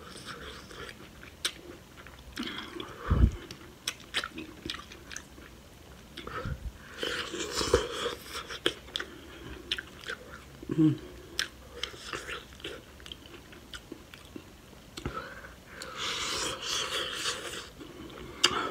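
Close-miked eating sounds: wet chewing and mouth clicks from eating sauce-coated seafood boil, with two louder, longer wet stretches about seven seconds in and near the end.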